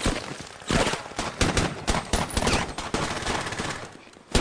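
Battle gunfire: rapid, overlapping rifle and machine-gun shots. The firing thins out and fades about three and a half seconds in, then one loud shot cracks right at the end.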